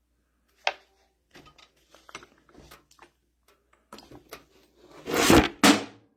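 Small clicks and knocks of hydraulic control valve parts being handled, with one sharp click near the start, then a loud rushing noise lasting about a second near the end.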